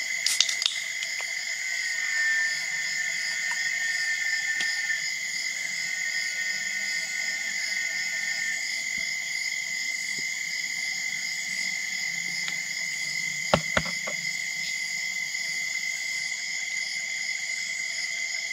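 Steady, high-pitched chorus of forest insects, several constant pitches at once with a fast pulsing in one of them, and a couple of sharp knocks close together about three-quarters of the way through.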